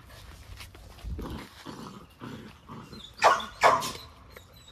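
Belgian Malinois puppies growling low as they tug at a raw beef rib, then a dog barks twice, sharply and loudly, a little over three seconds in.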